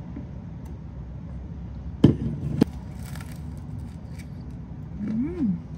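A toasted garlic bagel sandwich being handled over a paper plate, with two sharp clicks about two seconds in over a low steady background hum. Near the end there is a short hummed "mm" that rises and then falls in pitch.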